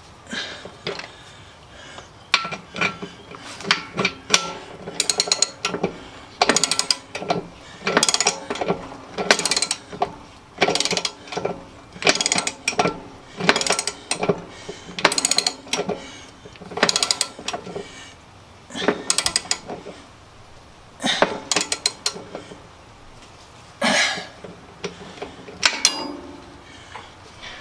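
Repeated metallic clanks and clinks, some ringing briefly, from steel tractor wheel parts and hand tools being worked.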